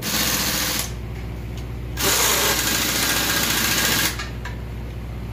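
Pneumatic impact wrench rattling on the cylinder head nuts of a 16-cylinder marine engine, in two runs: a short one under a second long, then a longer one of about two seconds. A steady machinery hum runs underneath.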